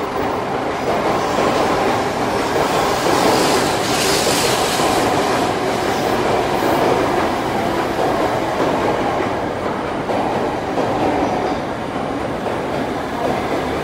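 A 700 Series Shinkansen moving alongside the platform, giving a steady rushing running noise. A brighter hiss rises briefly about four seconds in.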